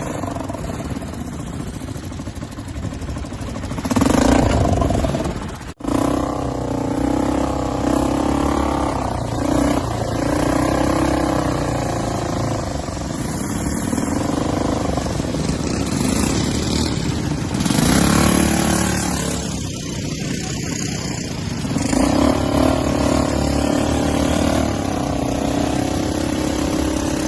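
A motor vehicle engine running steadily, its pitch slowly rising and falling, with a brief break about six seconds in.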